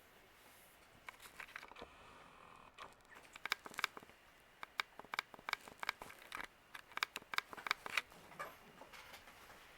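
A run of irregular small clicks and taps, sparse at first, then bunched together from about three to eight seconds in.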